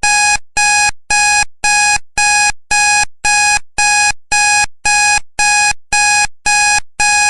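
Countdown timer's electronic alarm beeping: a string of identical beeps, about two a second, signalling that the ten minutes are up.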